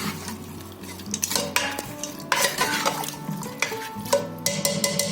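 Spoon stirring mutton, onions and tomatoes in water inside a pressure cooker, scraping and knocking against the pot in irregular strokes to mix in the salt.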